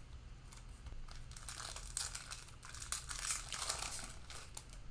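Crinkling cellophane wrapper of a trading-card cello pack being torn open and handled, in irregular crackles with stronger flurries about two and three seconds in.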